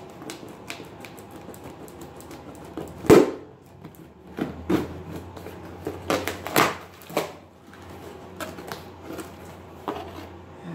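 A knife stabbing and cutting through packing tape on a cardboard shipping box, with irregular scrapes, taps and knocks as the cardboard flaps are worked open; the loudest knock comes about three seconds in.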